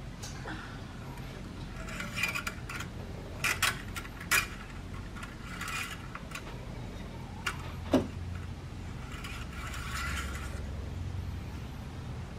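Metal engine-oil dipstick being slid in and out of its tube on a Nissan SR20DET, giving a scatter of light metallic clinks and scrapes, with a sharper click about eight seconds in. The oil level is being checked after an oil change.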